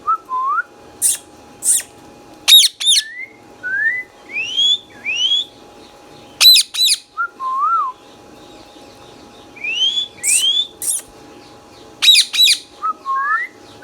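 Indian ringneck parakeet whistling and squawking: short rising whistled notes between loud, harsh shrieks that come mostly in pairs, repeated every few seconds.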